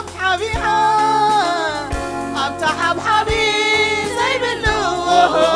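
Gospel worship song sung in Tigrinya: singing over band accompaniment, with a drum hit about every second and a half.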